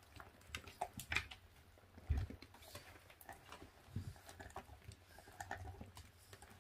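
24-day-old puppies tearing at and chewing raw meat in plastic crates: faint, irregular clicks and smacks, with a soft thump about two seconds in.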